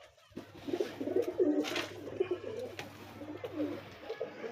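A flock of domestic pigeons cooing together, many overlapping calls, over a low steady hum that stops about four seconds in. A brief rustle comes a little under two seconds in.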